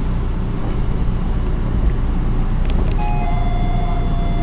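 A steady low rumble, with faint thin steady tones joining about three seconds in.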